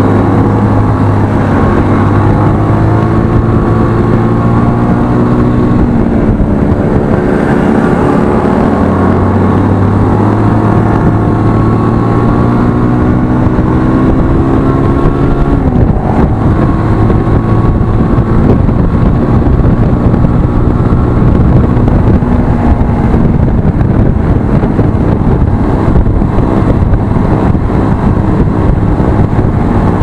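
Motorcycle engine running under way, its pitch climbing as it accelerates and dropping at a gear shift about sixteen seconds in, over steady wind and road noise on the microphone.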